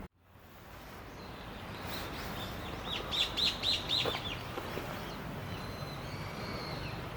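A bird calling outdoors: a quick run of about five high, falling chirps about three seconds in, over steady background noise, with fainter high calls afterwards.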